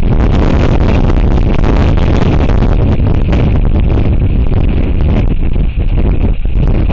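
Strong wind gusting over an outdoor camera microphone: a loud, steady low rumble with hiss above it, easing briefly a couple of times near the end.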